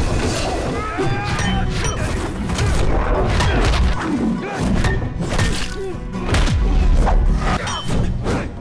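Martial-arts film fight soundtrack: dramatic music under a run of thuds, whacks and crashes from blows and smashed furniture.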